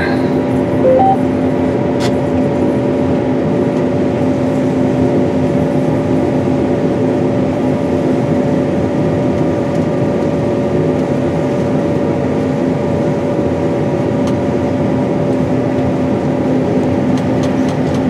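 Steady drone of a John Deere S790 combine's 543 hp engine and machinery, heard inside the cab, with a constant hum. A brief two-note beep sounds about a second in.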